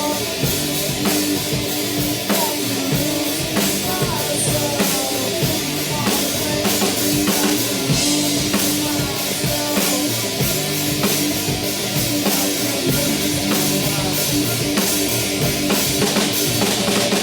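Rock band playing psychedelic alternative rock: a drum kit keeping a steady beat under guitar and bass.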